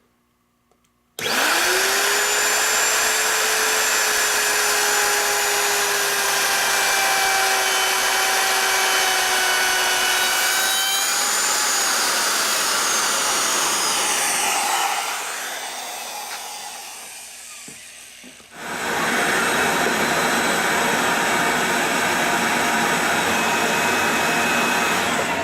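Router in a router table switched on and running at speed with a steady whine while routing out a slot in a hardboard panel. About halfway through it is switched off and its whine falls away as it coasts down, then it starts again and runs on.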